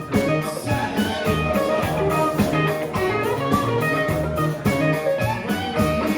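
A band playing an instrumental passage of a rock song, led by guitar over a steady drum beat.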